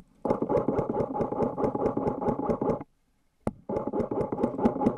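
Airsoft rifle firing two long full-auto bursts, a rapid even rattle of shots over a steady gearbox whine, the first about two and a half seconds long and the second starting after a short pause with a single sharp click.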